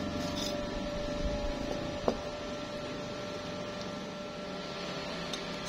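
Steady room hum with one sharp metallic click about two seconds in and a few faint ticks later, from a steel tube being handled and set down on a wooden table.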